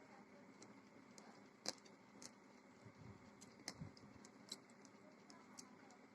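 Faint eating sounds: scattered soft clicks and smacks of chewing and of fingers working rice and curry.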